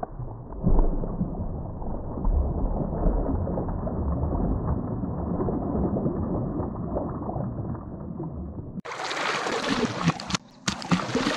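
Muffled sloshing and churning of water for most of the stretch. About nine seconds in it gives way abruptly to a louder, brighter rushing noise, broken once briefly.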